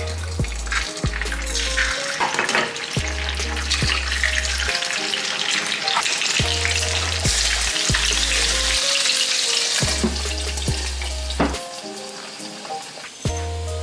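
Food sizzling in a hot pan, the sizzle strongest past the middle and falling away near the end, with a few sharp clicks, over background music with a steady bass line.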